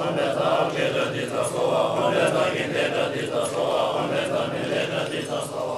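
Tibetan Buddhist monks chanting a liturgy together, many men's voices in a continuous recitation.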